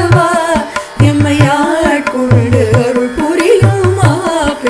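Tamil devotional song in Carnatic style: a wavering sung melody over hand-drum strokes in a steady rhythm.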